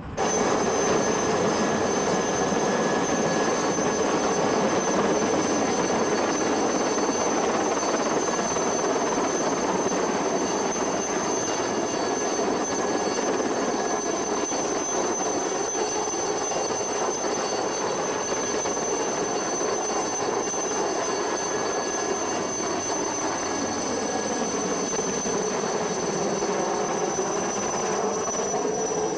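Light turbine helicopter flying with a load slung on a long line: steady rotor and engine noise with a high, constant turbine whine. Near the end the pitch bends as it passes overhead.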